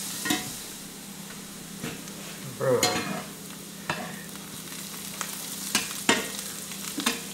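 Mushrooms sizzling in hot butter in a cast-iron skillet, with a spatula scraping and knocking against the pan several times as it pushes them around. The loudest scrape comes just under three seconds in.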